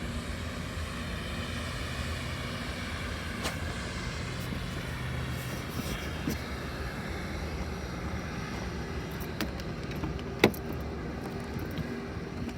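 Steady electrical buzz from under the dashboard of a 1999 Oldsmobile Aurora over a constant low hum, with a few sharp clicks, the loudest about ten seconds in. The buzz goes with the car's lights flashing at random, the sign of an electrical fault.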